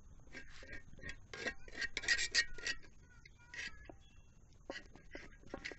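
Steel spatula scraping thick masala across a hot iron tawa: a quick run of rasping strokes, loudest about two seconds in, then a few single scrapes near the end.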